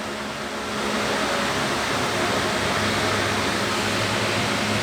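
Steady rushing noise with a faint low hum underneath, getting a little louder about a second in.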